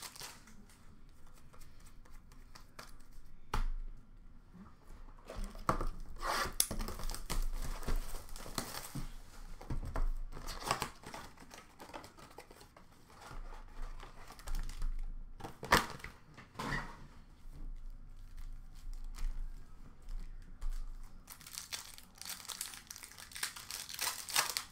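A hockey card blaster box and its foil packs being torn open by hand: crinkling wrappers and ripping cardboard in irregular bursts, with a few sharp tears.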